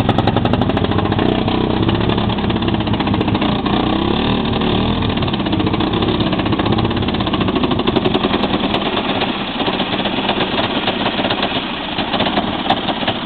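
ATV engine running and revving, its pitch rising and falling over the first several seconds, then settling into a steadier, slightly quieter run.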